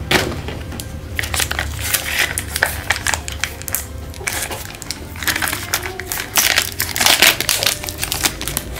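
Thin clear plastic packaging crinkling and crackling as the film is worked and peeled off a gummy candy's plastic cup, in irregular bursts that are loudest about seven seconds in.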